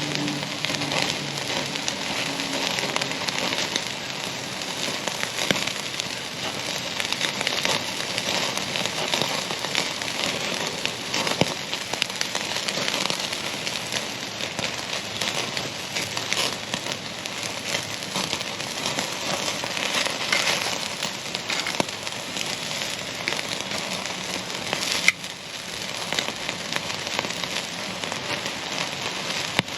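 Ribeye steak sizzling on a hot grill grate over a charcoal fire: a steady sizzle dotted with crackles and pops, with one sharp snap near the end.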